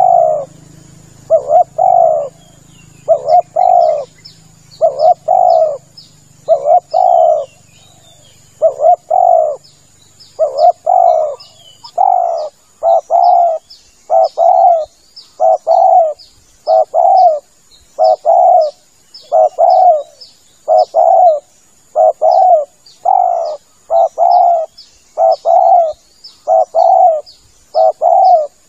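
Spotted dove cooing its song over and over, a short phrase of a few low coo notes about every 1.7 seconds. Faint high chirps and a thin steady high tone run behind it.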